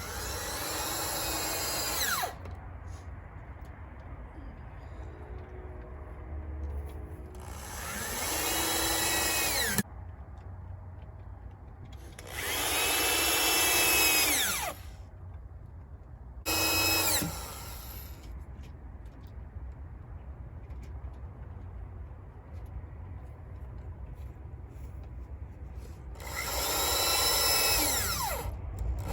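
Power drill running in five short bursts, likely driving screws into the new wooden floor boards. Each run ends with the motor's whine falling in pitch as it winds down.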